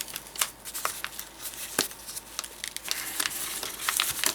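Small plastic bag being handled and opened by hand: light crinkling and rustling with scattered sharp clicks and taps.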